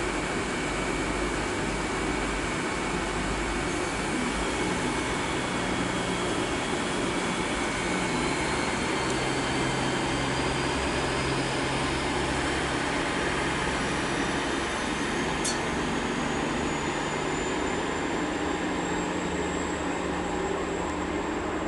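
GWR Hitachi IET (Class 800/802) train at the platform, giving off a steady drone with a low hum and thin high whines that rise slowly in pitch. A single short tick sounds about two-thirds of the way through.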